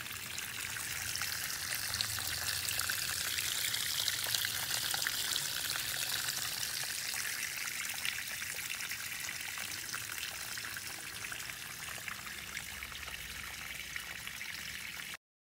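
Steady trickle of running water, a soft even hiss that cuts off abruptly shortly before the end.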